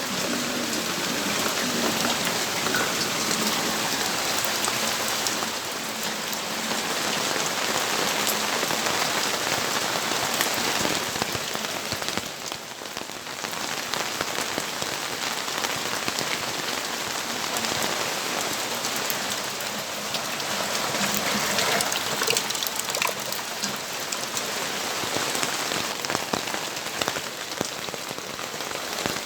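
Steady rainfall: a dense, even hiss of drops with many small individual drop impacts. It eases briefly about twelve seconds in, then picks up again.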